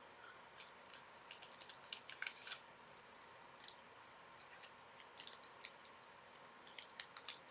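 Faint, intermittent rustling and clicking of trading cards and plastic card sleeves being handled.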